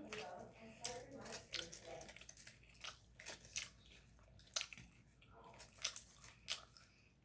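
A person chewing and biting food close to the microphone: scattered short crunches and wet mouth clicks.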